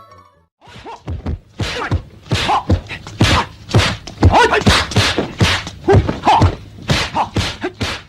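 Dog barking repeatedly and loudly, about two to three barks a second, starting just under a second in.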